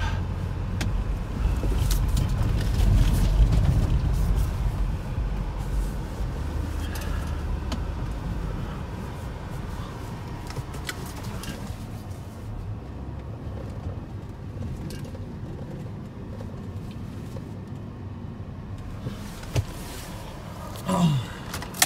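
BMW E46 engine running, heard from inside the cabin: a low rumble that is louder for the first several seconds, then settles to a quieter steady run.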